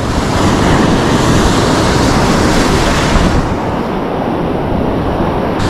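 Surf washing and foaming over rocks, with wind on the microphone. The sound turns duller a little past halfway and clears again near the end.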